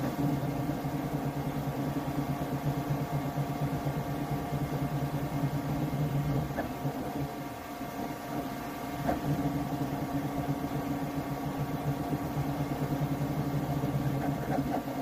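Flashforge Adventurer 5M Pro 3D printer printing: its stepper motors hum and buzz as the print head moves, over the steady whir of its cooling fans. The motor hum eases off for about a second a little past the middle.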